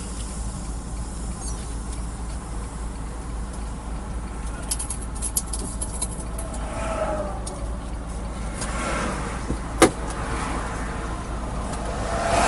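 Semi truck's diesel engine running, heard as a steady low rumble inside the cab, with one sharp click about ten seconds in.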